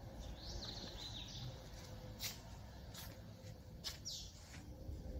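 Faint bird chirps, a short run about half a second in and another near four seconds, with three sharp light clicks in between.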